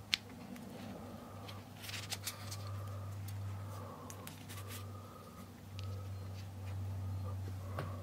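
A sharp click as the power cable's plug is pushed into the socket on the back of an Amazon Echo Dot. Scattered light clicks and rustles follow as the speaker, its coiled cable and the paper leaflet are handled, over a low steady hum.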